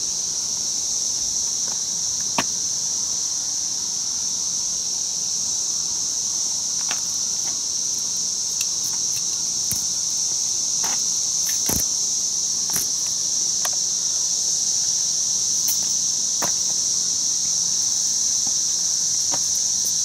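Periodical cicadas buzzing, one steady high-pitched drone, with scattered sharp clicks.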